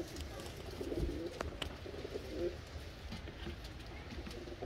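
Domestic pigeons cooing: several soft, low, warbling coos, one after another, with a couple of faint clicks.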